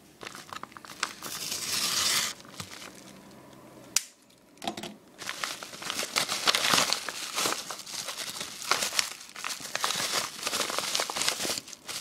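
Yellow padded mailing envelope crinkling and tearing as it is handled and opened, with a short lull about four seconds in.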